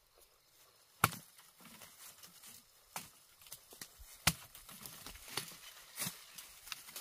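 Sharp knocks, four clear strikes at uneven spacing a second or two apart, with smaller knocks and faint rustling between.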